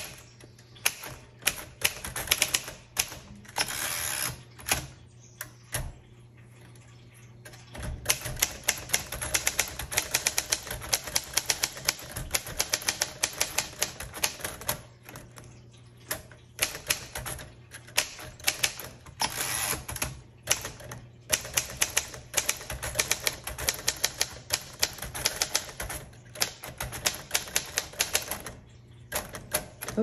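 1947 Royal Quiet Deluxe manual typewriter typed on briskly: quick runs of sharp key and typebar strikes, with a lull of a few seconds about five seconds in.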